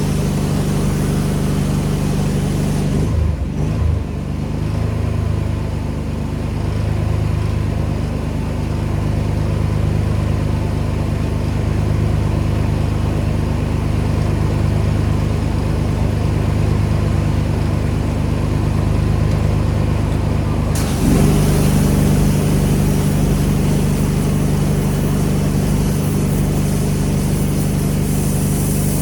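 Pressure washer running steadily, its engine hum constant throughout. The high-pressure spray hisses at first, cuts off about three seconds in, leaving the engine on its own, and starts again about twenty-one seconds in.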